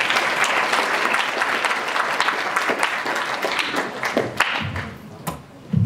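Audience applause in an auditorium, a dense patter of clapping that fades out after about four seconds. A short low thud sounds near the end.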